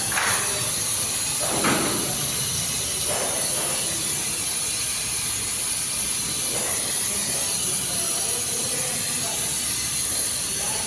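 Brazing torch flame on copper pipe, hissing steadily, with a few short louder swells of the flame.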